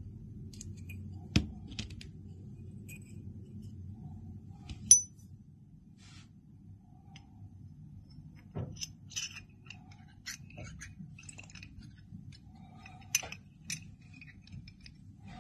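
Small metal parts of a Rum fidget toy clicking and clinking as they are handled and fitted together: a spring seated with a pick, then the centre shaft slid into the body. Scattered sharp taps, the loudest a clink with a brief high ring about five seconds in.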